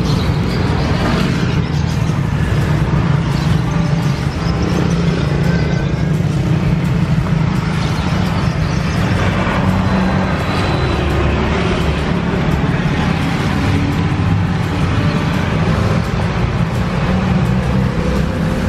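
Steady rumble of road traffic mixed with background music.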